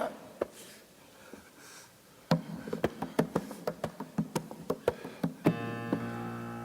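Stick percussion on a plastic bucket: sharp irregular knocks, sparse at first and then a quick busy run from about two seconds in. A sustained keyboard chord comes in near the end.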